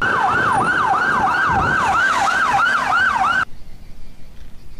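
Emergency vehicle siren on a fast yelp, sweeping up and down about three times a second, then cutting off suddenly a little over three seconds in, leaving faint background noise.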